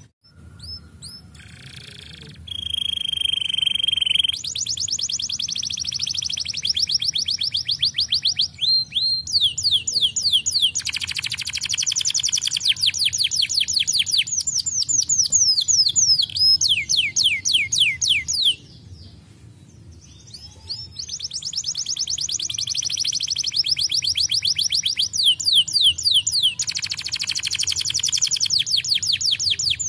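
Domestic canary singing long runs of fast, tightly repeated trill notes. A single held whistle-like note comes a few seconds in, and the bird breaks off briefly about two-thirds of the way through before trilling again.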